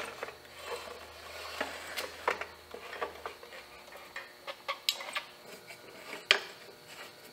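Scattered light clicks and knocks of a motorcycle rear fender being held in place on the frame while its mounting hardware is handled with a screwdriver.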